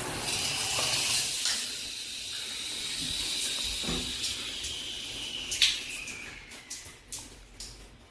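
Shower head spraying water steadily from its center nozzles. A sharp click comes about five and a half seconds in, then the spray dies away into scattered drips.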